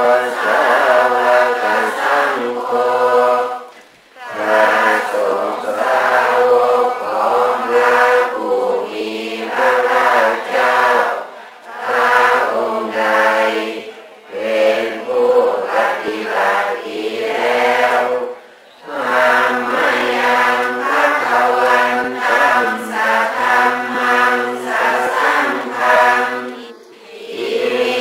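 A group of voices chanting in unison, a Buddhist prayer chant, in long phrases on steady pitches broken by short pauses.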